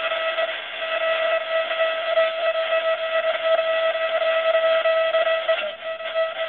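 Wideband interference heard through an HF transceiver's speaker in AM mode: a steady rough buzz with one strong tone and several fainter higher tones in it, holding as the receiver is tuned up through the 17 MHz region. The owner takes it for powerline networking adapter (PLA) noise, since it covers 2 to 34 MHz but is notched out at the amateur bands.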